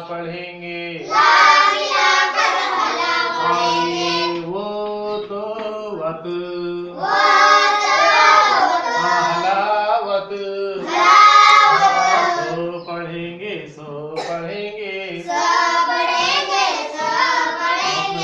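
Children's voices singing together in a sing-song recitation, in phrases of a few seconds with short breaks between them.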